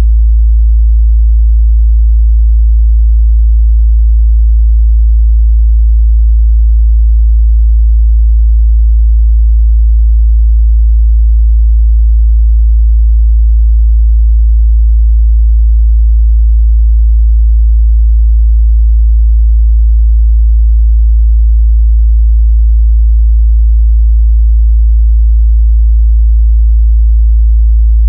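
A steady, loud 55 Hz sine-wave test tone: one unbroken low hum, a pure tone used to check speaker and headphone bass response.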